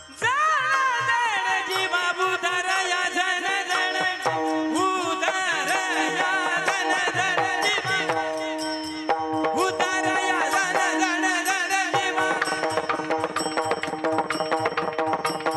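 Devotional kirtan music. A voice sings ornamented, gliding melodic runs over a steady drone, with brass hand cymbals (taal) clashing in rhythm and pakhawaj drum strokes. The cymbal and drum strokes grow denser near the end.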